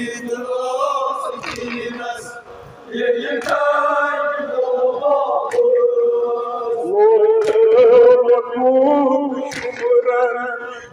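Kashmiri noha, a lament chanted by men's voices through a loudspeaker in long, wavering held notes. Sharp slaps come about every two seconds, keeping time with the chant, as the mourners beat their chests (matam).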